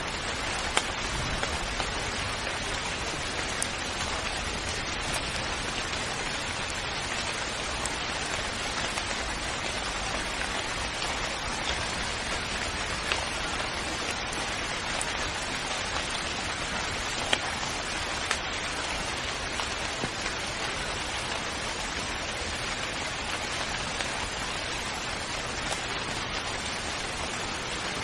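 Steady rain falling, an even hiss with scattered louder drop ticks now and then.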